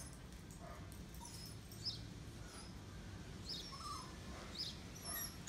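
Faint, distant dogs yelping and barking: scattered short high cries that come more often toward the end, over a low steady hum.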